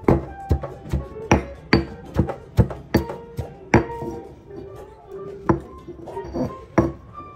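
Stone pestle pounding spices in a stone mortar: sharp knocks about two a second, a pause in the middle, then a few more, over background music.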